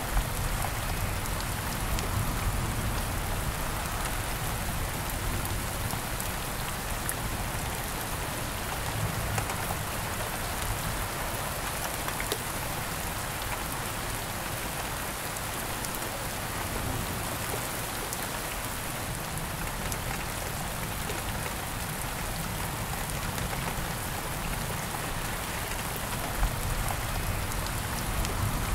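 Steady rain falling, an even hiss with scattered sharper drop hits standing out now and then.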